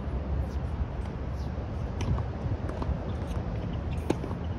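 Tennis ball struck by rackets during a rally: two sharp pops about two seconds apart, the second louder, over a steady low rumble.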